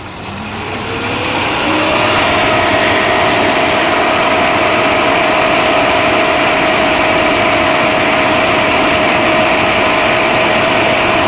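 Pentair IntelliPro 2 VST variable-speed pool pump speeding up with a rising whine over the first two seconds, then running steadily at 3450 RPM in its priming cycle.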